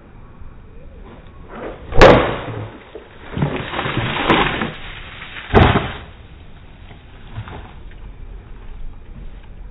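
Baseball bat hitting a plastic gallon jug full of water: a sharp, loud hit about two seconds in, then a rushing stretch of noise, a second sharp impact a few seconds later and a fainter knock near the end.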